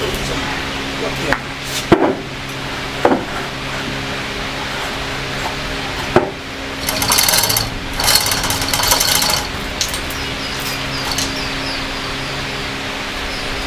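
Workshop mechanical work: a few sharp metallic knocks, then a burst of rapid rattling clicks like a ratchet, over a steady low hum.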